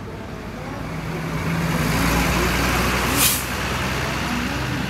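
Hino tour bus's diesel engine running as the bus pulls past close by, growing louder over the first two seconds, with a short, sharp hiss of its air brakes about three seconds in.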